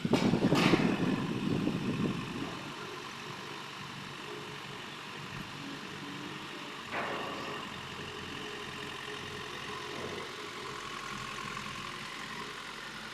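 Excavator engine running, louder and rougher for the first two seconds, then settling to a steady idle. A single knock comes about seven seconds in.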